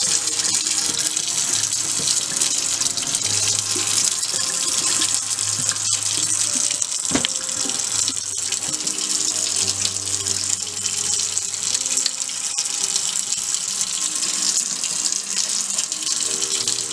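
Kitchen faucet running steadily into a stainless steel sink, the stream splashing over hands being washed.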